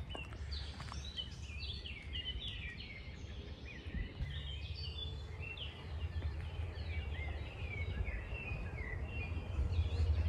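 Several songbirds chirping and warbling in quick short phrases, over a steady low rumble that swells near the end.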